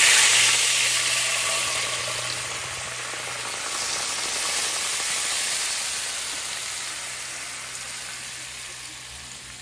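Chicken broth poured into a hot skillet, sizzling as it deglazes the browned bits on the pan. The sizzle starts suddenly, swells again about four seconds in as more broth goes in, then slowly dies down.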